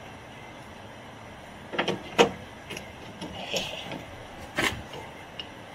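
Short metallic clicks and knocks from a hand pop-rivet gun and rivet being handled and set on the bonnet-catch bracket. The loudest knock comes just after two seconds in, and a last sharp click comes near the end.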